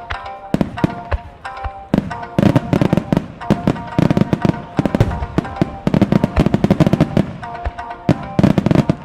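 Fireworks bursting over music played for a choreographed display: a few separate bangs at first, then about two and a half seconds in a dense run of rapid bangs and crackle that carries on under the music.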